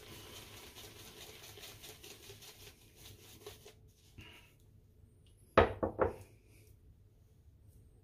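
A shaving brush worked around on a small soap puck to load it, a faint scrubbing rub, then three quick knocks close together about five and a half seconds in.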